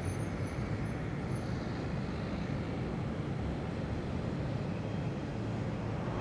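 Steady city street traffic noise: a low rumble of passing vehicles.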